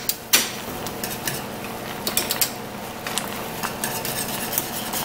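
Wire whisk rattling and scraping fast against the sides of a stainless steel saucepan, beating thickener into thin gravy. A couple of sharper clinks come in the first half second.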